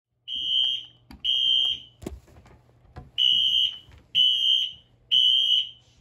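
Wheelock Exceeder electronic fire alarm horn sounding the temporal-three evacuation pattern: high, shrill half-second horn blasts about once a second, three to a group with a pause between groups. Two sharp clicks fall in the pause.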